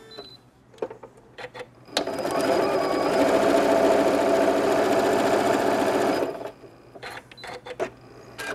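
Janome sewing machine stitching a short straight seam through a folded fabric strip. It runs evenly for about four seconds, starting with a sharp click a couple of seconds in, with a few light clicks before and after.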